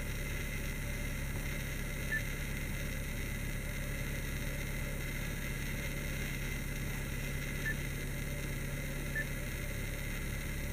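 Steady low hum in a car cabin, with a few short, high beeps about 2, 7½ and 9 seconds in as the Volkswagen infotainment touchscreen is pressed.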